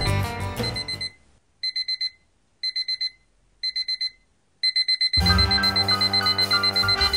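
Digital alarm beeping: short groups of about four quick high beeps, repeating about once a second. Background music stops about a second in and comes back about five seconds in, with the beeping carrying on over it.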